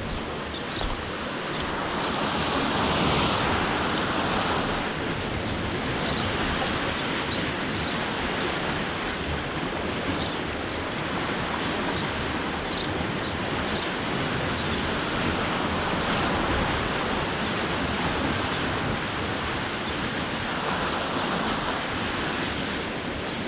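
Steady rush of flowing water in a small canal, an even wash of noise throughout.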